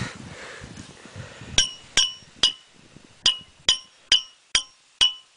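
Pocket knife tapped against the mouth of a homemade air-cannon barrel to ram a potato half down it: after a faint handling rustle, eight sharp, ringing clinks about two a second, starting about a second and a half in.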